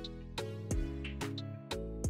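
Instrumental background music with held tones over a steady beat.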